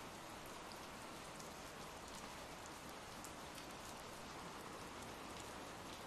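Ambient rain track: a faint, steady hiss of rain falling, with scattered light ticks of drops.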